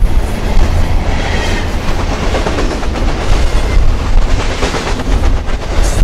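Double-stack intermodal well cars of a freight train rolling past close by: a heavy steady rumble with the wheels clacking over the rail joints.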